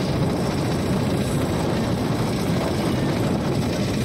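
Motorboat engine running steadily under way, a continuous low drone.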